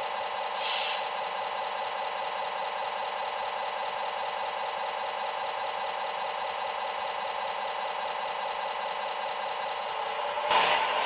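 A steady mechanical hum made of several held tones, with a short hiss about a second in and a louder burst of noise near the end.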